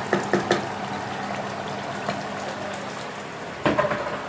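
Chicken curry simmering in an aluminium pot with a steady bubbling hiss. A wooden spoon knocks against the pot three times right at the start, and there is a quick cluster of knocks near the end.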